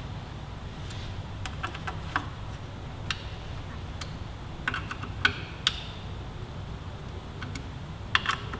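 Scattered light metallic clicks and ticks of hand tools as the small fasteners of a carbon-fibre heel guard are run down and torqued, over a low steady hum.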